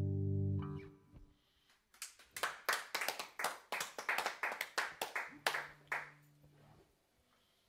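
The last chord of an electric guitar rings on and fades out in the first second. Then a small audience claps, a scattering of separate hand claps, for about four seconds.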